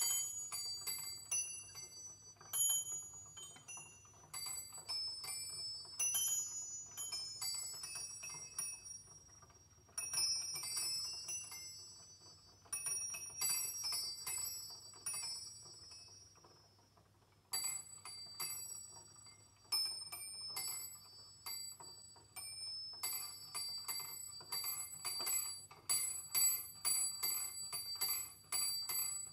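A peal of eight small brass bells tuned in C7, the largest 4.5 cm across, cast by Fonderia Allanconi and swinging full circle on their wheels in the Ambrosian style. They ring with rapid, high, overlapping strikes that come in clusters, each cluster dying down before the next one starts again suddenly.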